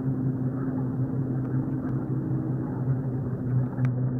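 A steady low hum holding one pitch, over an even rushing noise, with a faint click near the end.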